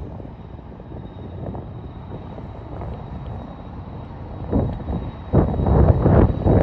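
Wind buffeting the microphone over a low outdoor rumble, swelling in loud gusts about four and a half and five and a half seconds in.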